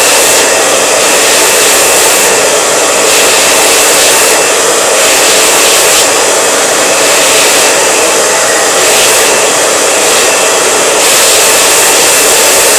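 Handheld hair dryer blowing at full power, a loud steady rush of air with a faint motor whine. The hiss brightens and dulls about every second and a half as the airflow over the hair shifts.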